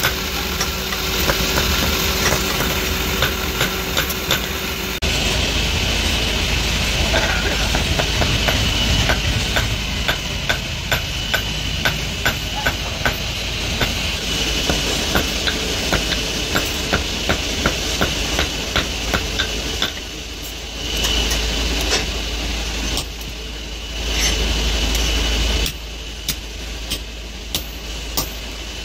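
Hand hammer striking a red-hot steel pliers blank on a steel block anvil: a run of sharp metallic blows, about three a second, starting about five seconds in and thinning out near the end. A steady low mechanical hum runs underneath.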